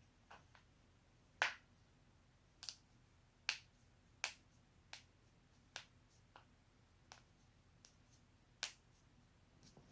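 Human joints being cracked: a series of about fifteen short, sharp pops at uneven intervals, a few much louder than the rest.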